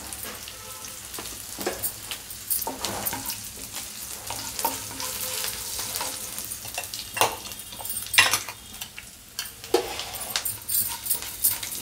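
Oil sizzling in a frying pan as a tempering of mustard seeds, lentils, chillies and cashews fries. A wooden spatula stirs and scrapes against the pan every second or two.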